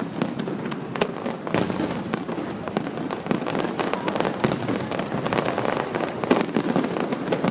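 Fireworks display going off: a rapid, continuous run of pops and crackles from many bursting shells, with one louder bang near the end.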